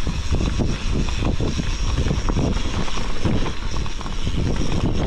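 Wind buffeting the microphone over the rumble and rattle of a bike ridden fast down a rough dirt trail, with frequent small knocks from bumps.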